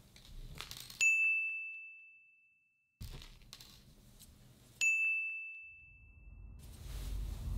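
Bright bell-like ding, heard twice, each a single clear tone that rings out and fades over about a second and a half. Soft rustling comes before each ding and grows louder near the end.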